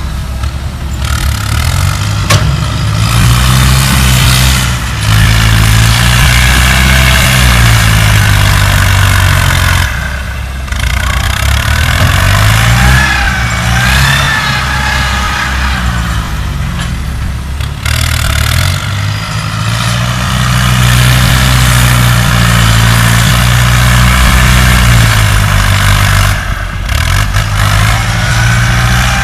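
Diesel engine of heavy earthmoving machinery working under load, its pitch rising and falling again and again as the machine labours and eases, with a higher whine above it.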